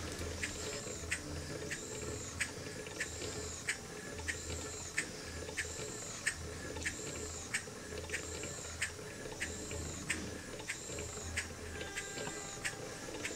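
Model Engineer beam engine running slowly on about 15 psi, with a regular click about one and a half times a second and a short hiss of exhaust at every other click, over a soft low rumble of the mechanism.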